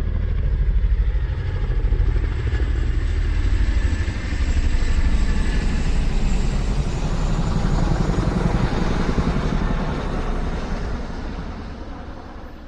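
A vehicle engine running steadily with a heavy low rumble, then fading away over the last few seconds.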